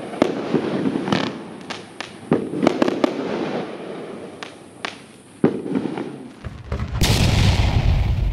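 Argento Blütenstaub firework battery firing: a quick run of sharp bangs and pops as shells burst, over a hissing crackle. Near the end a low rumble builds into a loud rushing whoosh.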